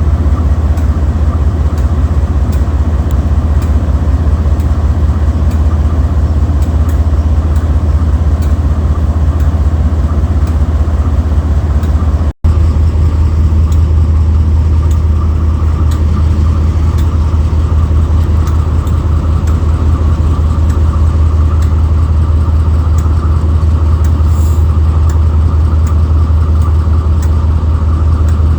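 Diesel-electric locomotive engine running steadily close by, a loud deep drone. The sound cuts out for an instant about twelve seconds in and then carries on unchanged.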